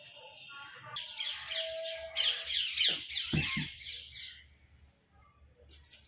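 A bird calling in a fast run of repeated high notes for about three seconds, with a couple of soft thumps partway through.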